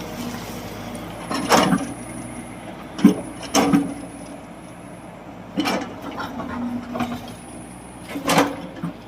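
Hyundai working machine running steadily, with loud knocks about one and a half, three, three and a half, five and a half and eight and a half seconds in, and a faint high whine that comes and goes.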